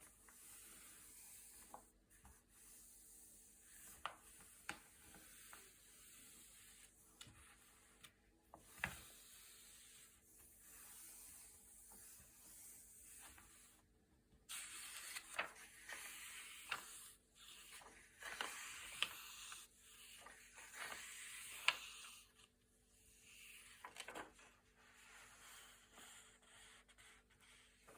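Thick glossy paper pages being handled and turned, giving soft crisp rustling with scattered small sharp crackles. The rustling thickens and grows louder about halfway through as a page is turned over, then settles again near the end.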